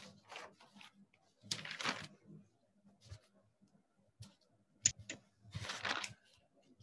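Sheets of paper rustling as they are handled, in two short bursts a few seconds apart, with a couple of sharp clicks just before the second.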